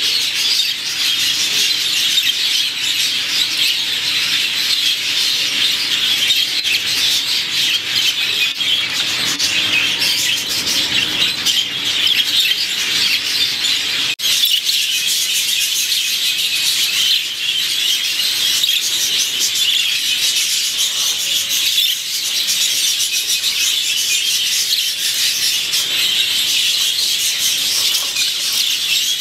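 A flock of exhibition budgerigars chattering and warbling, a continuous dense high-pitched twittering, with a brief break about halfway through.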